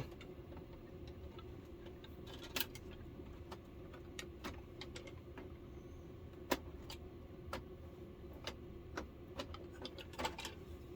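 Scattered light clicks and taps from an LCD panel and its plastic frame as the panel is handled and eased into position in a flat-screen TV, over a faint steady hum.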